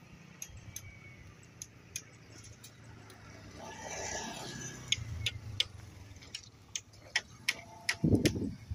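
Scattered sharp clicks, a few a second and coming more often in the second half, then a motorbike passes close by near the end with a short loud low rumble.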